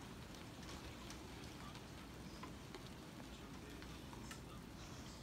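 Steady rain: a faint, even hiss with irregular drops ticking through it.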